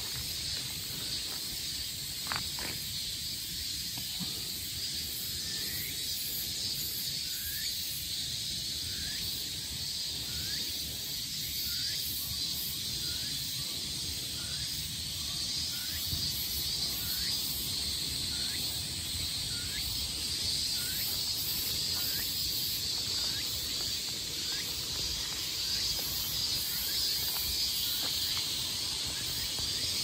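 Woodland insects making a steady high buzz, with a short rising chirp repeating about once a second, and one knock about two seconds in.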